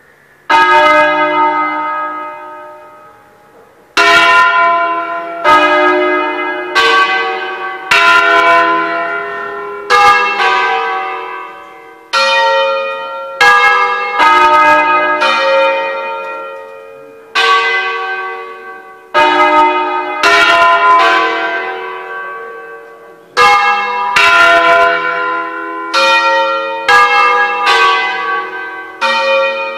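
Church tower bells ringing a solemn concerto, a tune played one bell at a time. Loud single strokes on bells of different pitch come every second or two, each left to ring out over the next. There is a pause of a few seconds after the first stroke.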